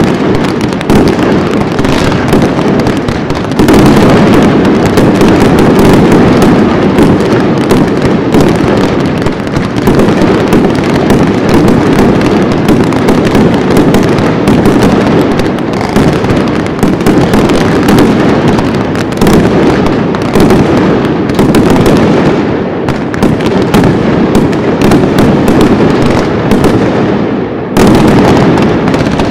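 Dense fireworks barrage: rapid, overlapping bangs and crackles, very loud and without a break. The crackle thins for a few seconds late on, then a fresh volley comes in sharply near the end.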